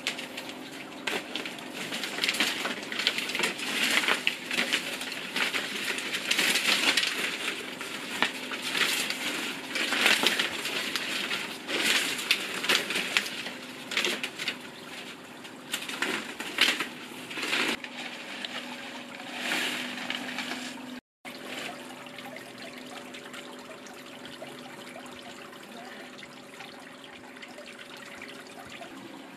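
Paper pinwheels rustling and crinkling in repeated bursts as they are picked up from a pile and set out. About two-thirds of the way through the rustling stops, leaving a steady low background with a faint hum.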